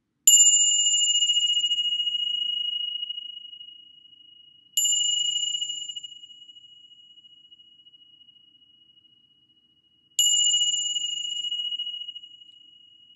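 Tingsha cymbals struck together three times, several seconds apart, marking the close of the meditation. Each strike gives a clear, high, bell-like ring that fades slowly over a few seconds.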